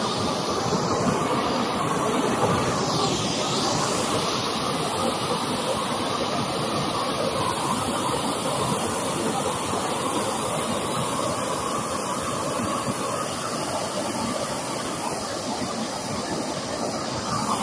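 Gas torch flame running steadily, a continuous hiss, while charring the wood surface shou sugi ban style.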